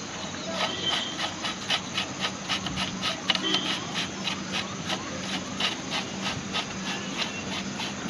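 Hand work on metal motorcycle fork parts in a workshop: rapid, irregular clicks and light scraping over a steady low hum.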